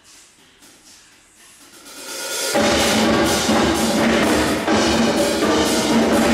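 Percussion ensemble of drums, timpani and cymbals: a soft passage of scattered light strokes, then about two and a half seconds in the whole ensemble comes in loud with dense, driving drum strokes and cymbals.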